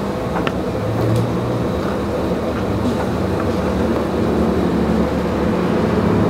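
Steady low rumble of street background noise, with a few light clinks of a metal spoon against a plate.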